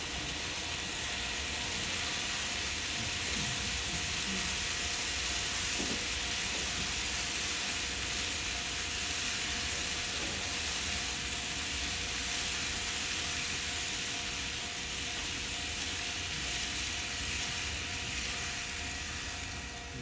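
N gauge model train running along the layout track: a steady rolling rattle of small wheels on rail, with faint steady motor tones.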